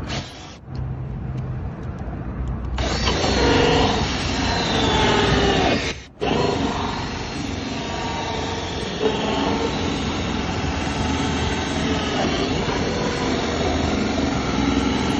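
Cordless drill spinning a 3-inch hole saw through the polyethylene wall of a vertical plastic water tank. The saw cuts steadily from about three seconds in, with a brief break near the middle.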